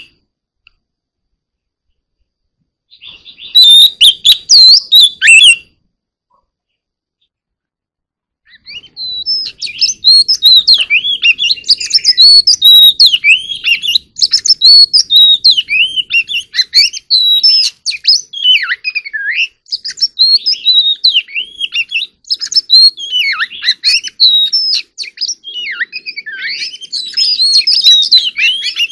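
Oriental magpie-robin singing. A short burst of song comes about three seconds in, then a pause. From about eight seconds on it sings a long, unbroken run of rapid, varied phrases of quick rising and falling notes.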